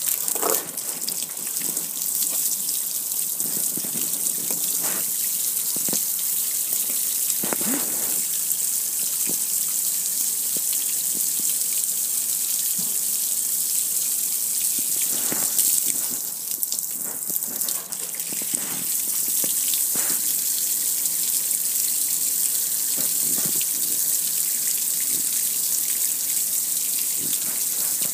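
Water spraying onto a metal gas grill, hissing steadily and splashing and streaming off its lid and panels, with scattered sharper splashes. The spray eases briefly a little past halfway, then comes back on full.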